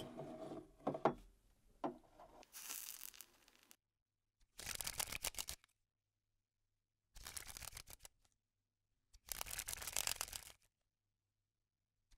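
Three quick runs of paper cards flipping over, each a rapid clicking flutter lasting about a second, with silence between. In the first few seconds there are a few sharp clicks and a rustle.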